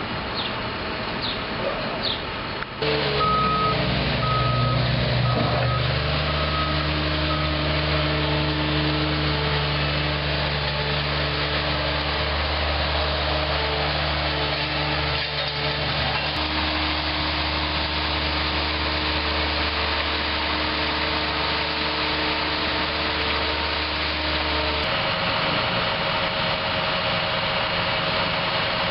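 Heavy construction equipment's engine running steadily, growing louder about three seconds in and shifting its pitch near the end. A reversing alarm beeps repeatedly for a few seconds soon after the engine picks up.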